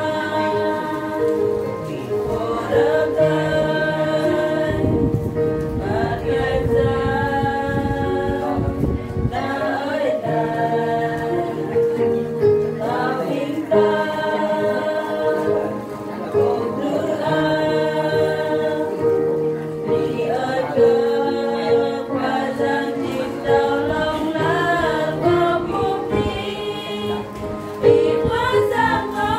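A small women's choir singing a Christian hymn in the Bahnar language, accompanied by long held chords from an electronic keyboard.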